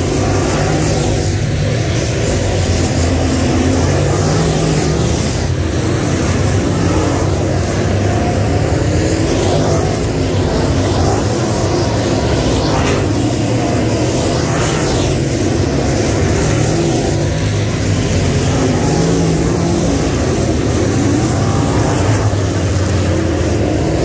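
Dirt late model race cars' crate V8 engines running hard on the track: a steady, loud engine drone, with pitch sweeps as cars go by.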